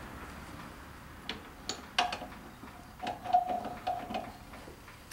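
Hand ratchet clicking in short, irregular runs as the transmission-mount bolts are run up, with a light metallic ring on some of the clicks.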